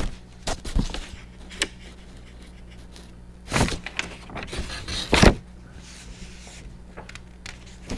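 Handling noises: a few short knocks and rustles, the two loudest about three and a half and five seconds in, over a steady low hum.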